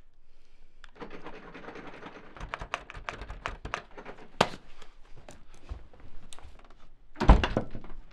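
Laptop keyboard being typed and clicked on in irregular taps, then a single loud thud about seven seconds in.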